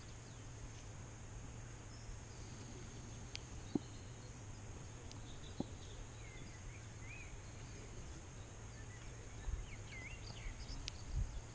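Quiet pond-side ambience: a steady faint background with a low hum, a few short bird chirps around the middle and again near the end, and a handful of soft clicks as the hook and paste bait are handled.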